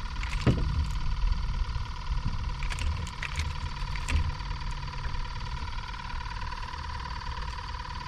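A few light clicks and knocks of a small speckled trout being swung in on the line and unhooked, over a steady low rumble and a constant high hum.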